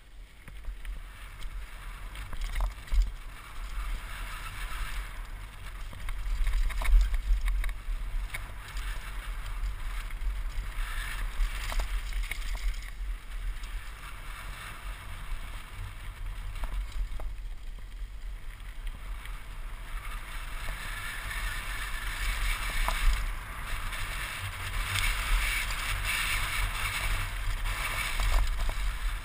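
Mountain bike descending a dirt and gravel trail, heard from a helmet camera: tyres rolling over loose dirt and gravel and wind rumbling on the microphone, with scattered knocks and rattles from the bike over bumps. The tyre and wind noise swells twice, around a quarter of the way in and again near the end.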